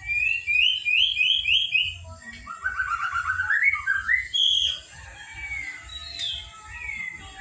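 Young white-rumped shama singing: a run of five quick rising notes, then a fast rattling phrase that climbs in pitch, then scattered single whistles.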